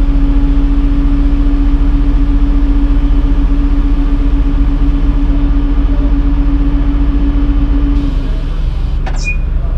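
Diesel engine of a heavy tracked forestry machine running loudly, with a steady hum over the engine rumble that cuts off about eight seconds in. A brief click comes near the end.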